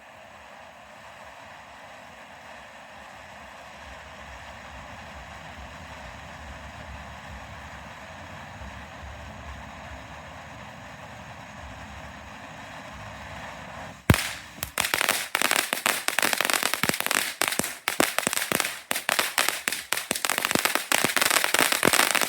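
Firework fountain (Miracle Fireworks' Pyro Patrick) spraying with a steady hiss that slowly grows louder. About fourteen seconds in, a sharp crack sets off dense, loud crackling.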